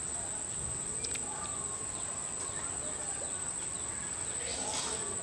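Steady high-pitched insect drone with scattered bird chirps.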